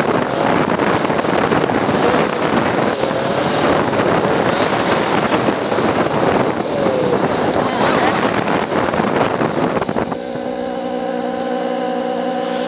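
Motorcycle on the move, sped up: loud wind rush on the microphone over the engine, whose pitch rises a few times. About ten seconds in the rush cuts off abruptly as the bike pulls up, leaving a steady hum.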